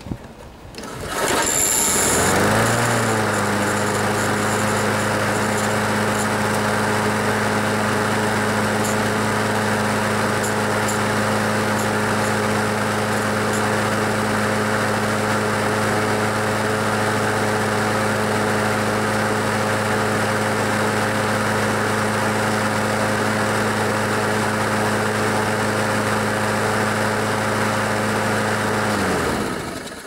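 Briggs & Stratton single-cylinder lawnmower engine on a Craftsman push mower, pull-started and catching within about two seconds. It settles into a steady, even run and then shuts off and winds down near the end. It runs good after its contaminated fuel system and carburetor were cleaned.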